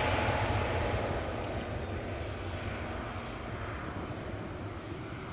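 Jet noise from a Boeing 737 MAX 8-200's CFM LEAP-1B engines as the airliner rolls along the runway. The sound fades over the first couple of seconds, then settles into a steady low rumble.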